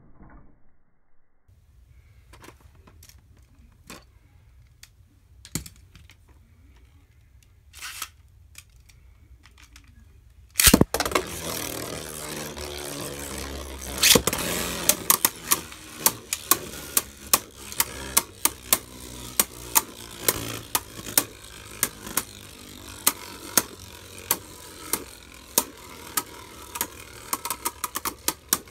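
Beyblade Burst tops, Arc Bahamut and Maximum Garuda, spinning in a plastic stadium. After a quieter stretch with scattered clicks, a sharp clatter about ten seconds in starts a steady whirr, with rapid clacking as the tops strike each other, coming faster near the end.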